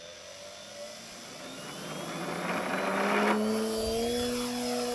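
Sebart Katana radio-controlled model aerobatic plane's motor and propeller throttling up for the takeoff run, the pitch rising steadily and then holding as it lifts off. A rushing noise swells and cuts off sharply about three seconds in, at the loudest point as the plane passes.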